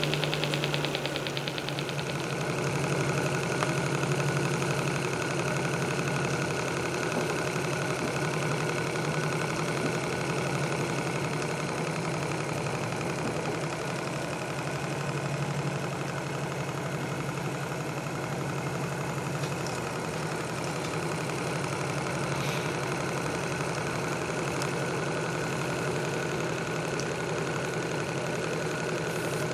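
Hand-built Graham TVR1A twin-cylinder vertical model steam engine running steadily on steam at a fast, even beat, on its first steam run.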